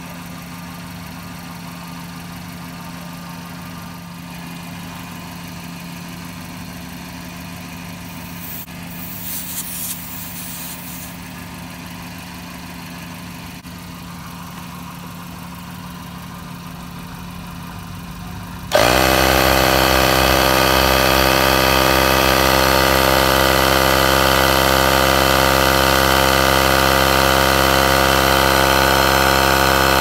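A car engine idles with a low steady hum, with a brief hiss at about 9 seconds. About 19 seconds in, a 12-volt Continental ContiMobilityKit tyre compressor switches on abruptly. It runs with a much louder, steady mechanical drone as it pumps air into the tyre.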